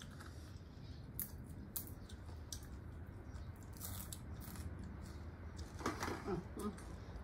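Fresh green vegetable stems being snapped and torn by hand: scattered short crisp snaps and clicks, with a few brief murmured voice sounds about six seconds in.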